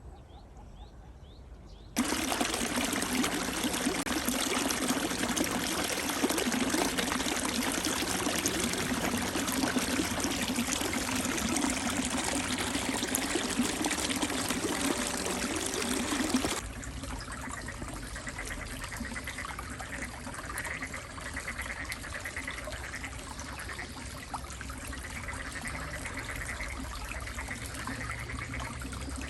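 Water flowing steadily. It starts suddenly, runs loud for about fifteen seconds, then cuts to a quieter flow with faint short chirps over it.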